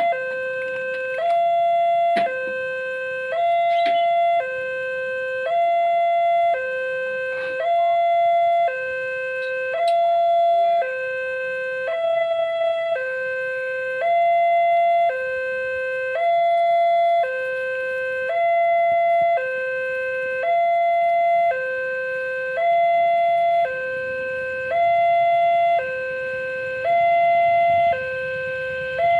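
Railway level-crossing warning alarm sounding: an electronic two-tone signal that alternates a lower and a higher tone, about one cycle every two seconds, warning that a train is coming. A low rumble starts to build in the last few seconds.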